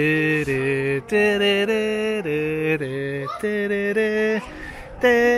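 A man singing a slow, wordless tune of long held notes that step up and down in pitch, phrase after phrase, as a stand-in for a theme tune.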